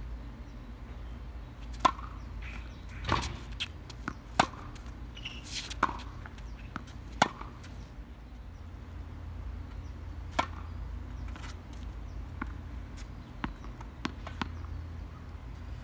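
Tennis ball rally on a hard court: rackets striking the ball and the ball bouncing, a string of sharp pops roughly every second and a half, with only a few fainter ones after about ten seconds.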